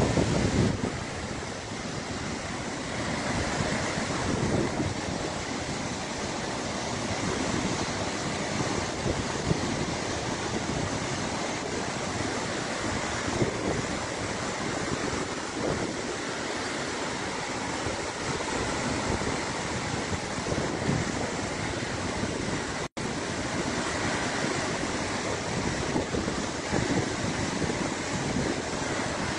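Floodwater pouring over a full dam's spillway, a steady, dense rush of falling water.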